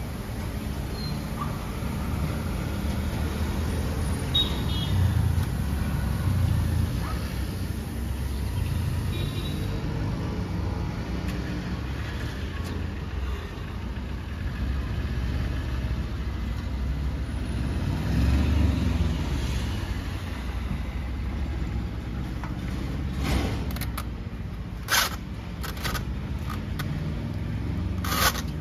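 Low rumble of road traffic that swells twice as vehicles pass. Several sharp clicks and knocks come near the end.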